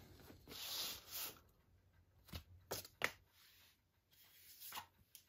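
Faint rustle of a paper inner sleeve and card record sleeve as a vinyl LP is slid out and handled: one longer sliding rustle about a second in, then a few light taps and clicks of the record and card.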